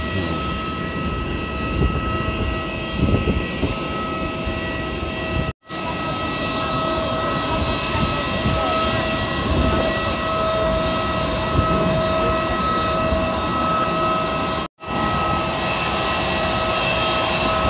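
Steady rush and constant high whine of a parked Airbus A320 airliner on the apron, several steady tones held over the noise. The sound cuts out for an instant twice, about six and fifteen seconds in.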